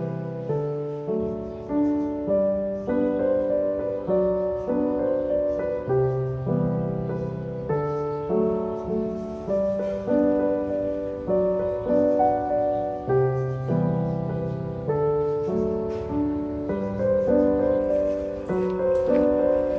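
Solo piano background music, a melody over chords with notes struck about once a second.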